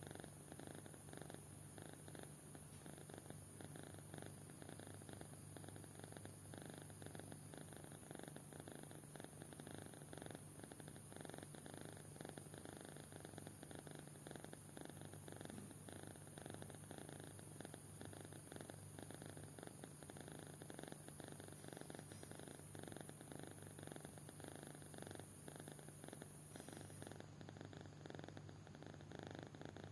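Sleeping kitten purring, a faint, steady, fast-pulsing rumble with each breath, the sound the uploader calls snoring. A steady high hiss stops near the end.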